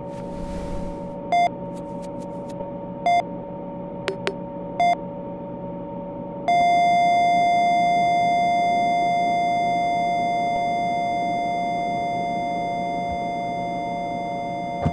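Patient heart monitor beeping about once every 1.7 seconds, then going into one unbroken flatline tone about six and a half seconds in, the sign of the heart stopping. The flatline slowly fades over a steady low hum.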